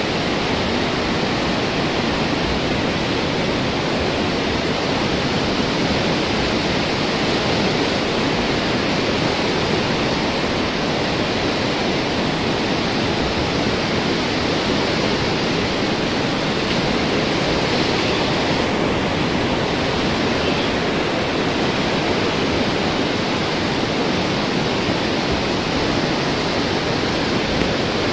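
A fast-flowing river rushing steadily through a ravine, an unbroken loud wash of water noise.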